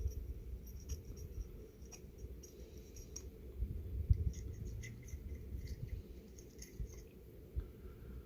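Razor blade scraping excess cured windshield-repair resin off a glass lantern chimney in short, irregular strokes, with a few low knocks of the glass being handled, the loudest about four seconds in.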